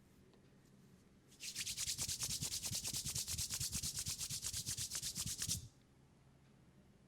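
Fast rhythmic rubbing by hands, about nine quick back-and-forth strokes a second, for about four seconds. It starts about a second and a half in and stops abruptly.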